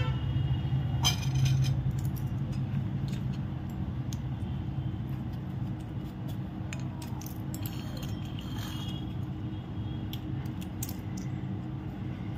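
Pistachios being shelled by hand: scattered small cracks of shell and light clicks and clinks of nuts and shells on a ceramic plate, with a louder ringing clink about a second in. A steady low hum runs underneath.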